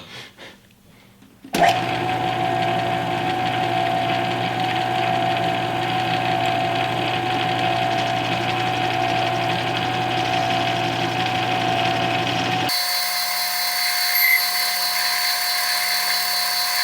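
Small metal lathe starting up about a second and a half in and running steadily, with a constant whine and hum as it turns down aluminium bar stock. Near the end the sound changes abruptly to a thinner, higher whine with the low hum gone.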